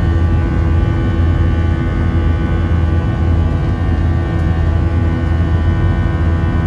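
Airbus A319's CFM56 turbofan engines running at high power during the initial climb, heard from a cabin window seat over the wing. A steady deep rumble carries the buzzsaw tone of the engine fan as a chord of many steady tones.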